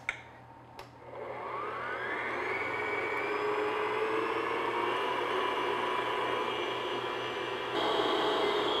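Stand mixer with its whisk attachment beating egg whites in a glass bowl at medium-low speed, working them toward soft peaks. There is a click about a second in, then the motor whines up to speed and runs steadily.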